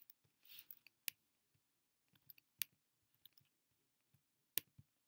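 Faint, scattered clicks of a computer mouse and keyboard: about eight sharp ticks spaced unevenly, with a brief soft rustle about half a second in.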